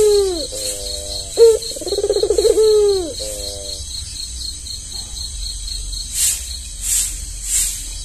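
Albino Barbary dove (puter) cooing: one call trails off near the start, then a full call about a second and a half in, with a sharp rising note, a rolling purr and a drawn-out falling coo. A faint high pulsing chirp runs behind it, and a rhythmic rattle of roughly two strokes a second starts about six seconds in.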